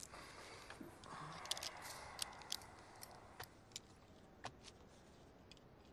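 Faint rustling of paper with scattered light clicks and ticks, as of drawings or pages being handled on a desk.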